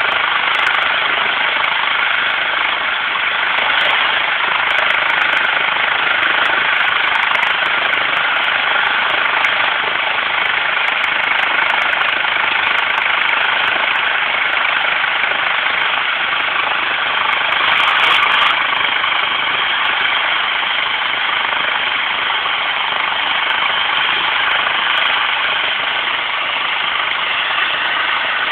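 Trauma helicopter running steadily, its turbine whine and fast rotor chop holding an even level, with a brief swell about eighteen seconds in.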